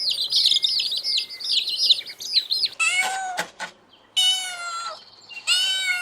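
Birds chirping rapidly and high for the first half, then a cat meowing three times, each meow short.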